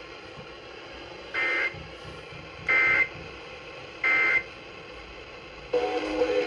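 Three short electronic data bursts, about 1.4 s apart, over a steady hiss. They are the SAME digital end-of-message code that NOAA Weather Radio sends after a warning. A different, lower electronic sound starts just before the end.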